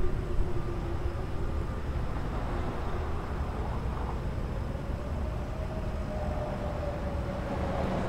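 Faint, distant Whelen electronic sirens sounding a wail, a single tone rising and falling slowly in pitch, over a steady low rumble of city background noise.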